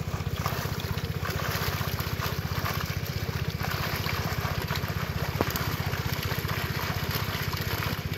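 A small engine running steadily with a fast, even thumping, under water splashing and sloshing as a net full of tilapia and tiger prawns is hauled through shallow pond water.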